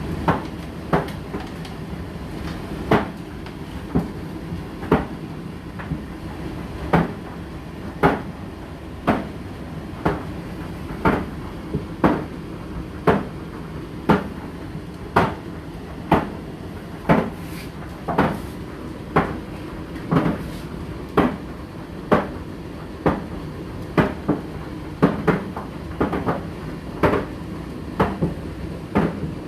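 Indesit IDC8T3 condenser tumble dryer running with a steady hum, and a sharp knock about once a second as something in the rotating drum tumbles and strikes it.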